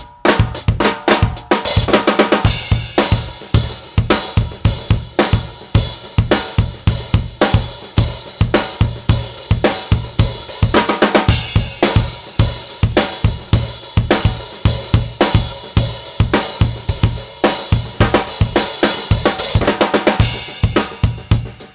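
A drum kit played in a continuous groove, kick drum, hi-hat and cymbals around a custom 14" x 5.5" rock maple snare drum left undampened, so its strokes ring open.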